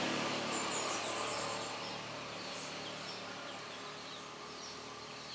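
Outdoor ambience of steady noise with a low hum that slowly fades, with a bird giving a quick run of high chirps about half a second in and a few fainter chirps later.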